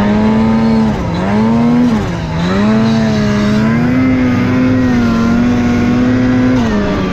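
Snowmobile engine running at speed, its pitch dipping and climbing back as the throttle is eased and opened, twice, then holding fairly steady.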